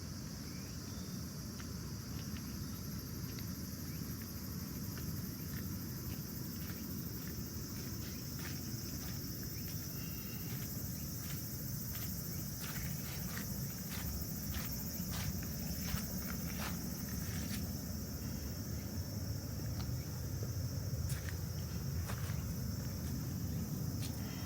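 Insects chirring in a steady high drone, with footsteps clicking at a walking pace through the middle of the stretch over a low steady rush.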